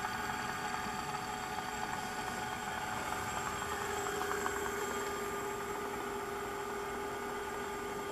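Brushless geared 250 W hub motor spinning its wheel unloaded at about its top speed of roughly 20 km/h, giving a steady whine of several tones from the motor and its gears. A lower tone joins about four seconds in.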